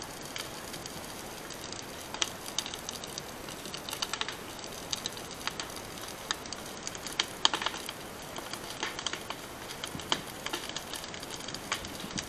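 Burning dry grass and brush crackling, with irregular sharp snaps over a steady hiss.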